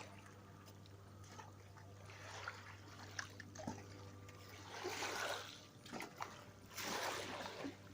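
Water lapping and splashing gently at the water's edge, in soft swells about every two seconds that grow a little stronger later on.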